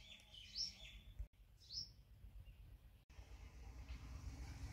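Faint background: a few short, rising bird chirps in the first two seconds over a low rumble of ambient noise. The sound cuts out briefly twice.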